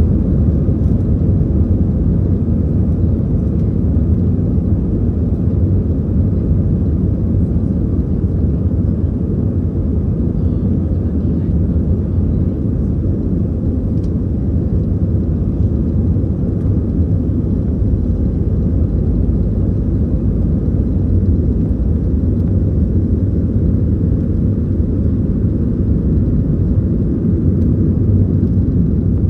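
Airbus airliner's twin jet engines at takeoff thrust, with the wheels rolling down the runway, heard from inside the cabin: a steady, loud low rumble.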